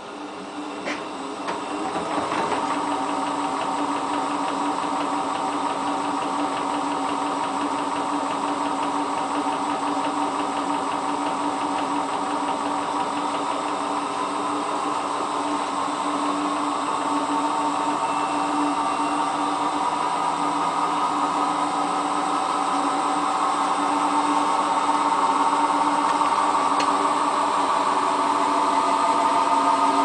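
Hotpoint Ultima WT960 washing machine on a fast spin, the drum and motor running with a steady whine. It gets louder about two seconds in and then climbs gradually as the drum spins an unbalanced load of trousers without first balancing it.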